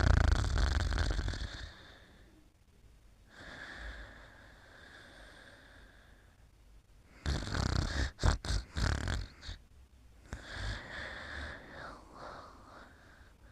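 Snoring in slow breaths, about four in all, the loudest at the start and another loud, rattling one just past the middle.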